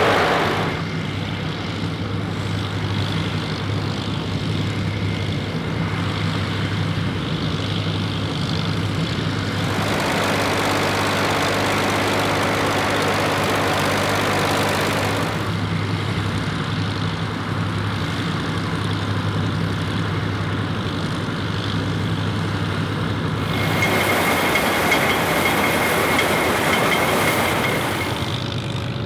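Steyr 185a tractor engine running steadily while it pulls a Claas Super Automatic-S pull-type combine, whose threshing machinery adds a broad clattering noise. The noise grows louder twice, for several seconds each time.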